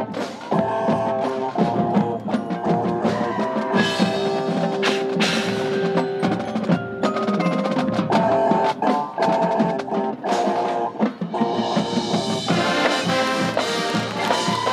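Marching band playing: wind instruments with percussion strikes from the drums and front ensemble. The full band swells louder and brighter about twelve seconds in.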